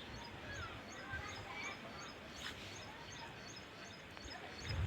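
Small birds chirping, with one high chirp repeating evenly about three times a second and a few short gliding calls. A low thump comes near the end.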